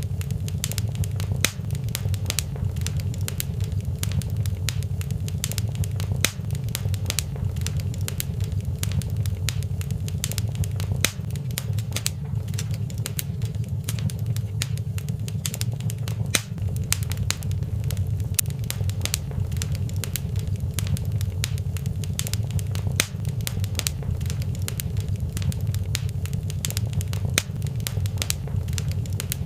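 Fireplace fire crackling, with many small sharp pops scattered over a steady low rumble of the flames.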